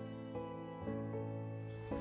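Slow, sad film score of bowed strings holding sustained chords, the chord changing a few times.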